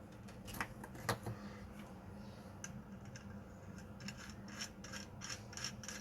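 Handling noises: a few sharp clicks, the loudest about a second in, then a run of short scraping strokes.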